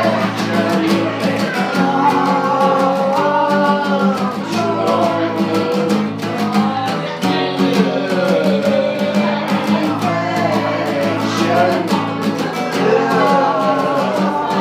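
Acoustic guitar strummed steadily while a man sings a bending melody over it, live.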